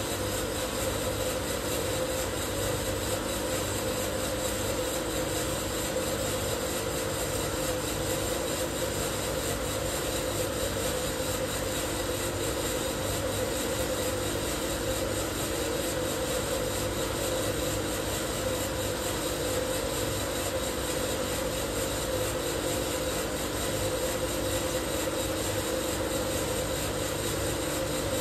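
Probatone P12 Series 2 12 kg drum coffee roaster running steadily: a constant machine drone of drum and fans under the dry, rasping rush of coffee beans tumbling in the drum.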